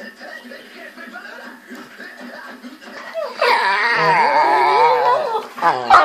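Pit bull dog making a long, wavering moaning vocalization while playing, starting a little past three seconds in, followed by a shorter one near the end. Before it there are only faint small sounds.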